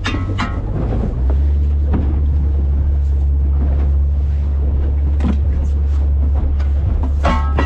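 Boat engine running under way: a steady low drone that comes in about a second in, over wind and water noise.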